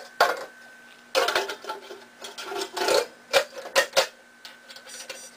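Tin cans knocking and scraping metal on metal as they are slid and nested inside one another, with several sharp clinks spread through.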